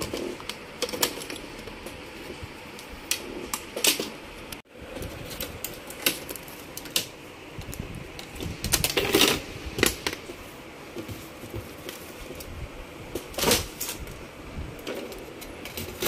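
Irregular clicks, taps and knocks of a Dell Latitude E5420 laptop motherboard being worked loose and lifted out of its chassis, with a few louder knocks among them.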